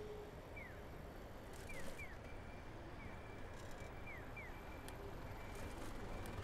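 Electronic 'piyo-piyo' chirp of a Japanese pedestrian crossing signal: short falling chirps repeating about once a second, alternating between a single chirp and a quick pair, over a steady traffic and road hum.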